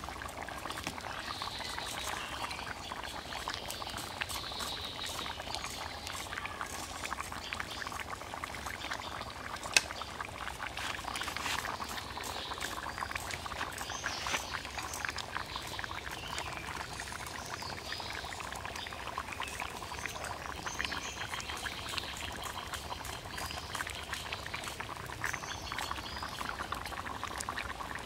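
Curry of fish, cauliflower and potatoes bubbling in a karahi over a wood fire, a steady bubbling and fine crackling with one sharp click about ten seconds in.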